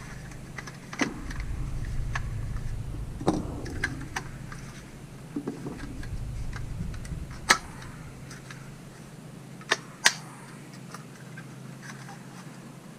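Scattered small clicks and taps of small plastic and metal parts being handled on the bench, with the sharpest clicks about two-thirds of the way in. A low steady hum underneath fades out after about eight seconds.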